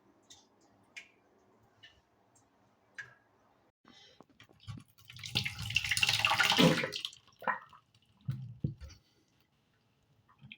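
Diarrhea splattering into toilet water: a few scattered drips, then a loud wet burst lasting about two and a half seconds midway, followed by a few short plops.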